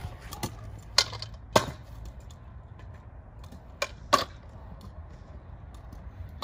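Stunt scooter's wheels rolling on concrete with a low rumble. Four sharp clacks come as the scooter deck and wheels hit the concrete: two about a second in and two more about four seconds in, as the rider works the quarter pipe.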